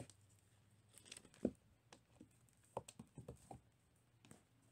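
Faint, irregular soft taps and rustles of cats batting and pouncing on a quilted fabric cat bed. One louder thump comes about one and a half seconds in, and a quick run of taps around three seconds.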